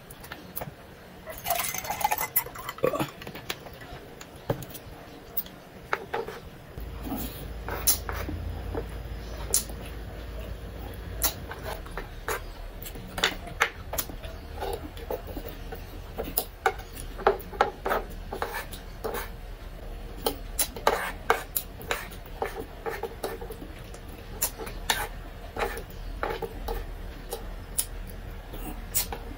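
Eating sounds: a fork and wooden spoon clicking and scraping against wooden plates and bowls, many short sharp clicks scattered throughout.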